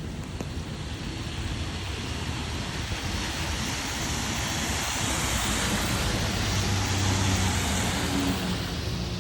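A car going past on a wet road: the tyre hiss builds over a few seconds, peaks past the middle with a low engine hum, and eases off near the end, over steady rain.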